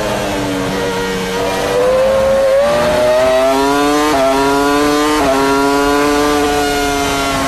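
Onboard sound of a 2002 Williams-BMW Formula One car's 3-litre V10 at racing speed. The engine note falls off, then climbs as the car accelerates, with two quick upshifts about four and five seconds in, where the pitch drops sharply before rising again.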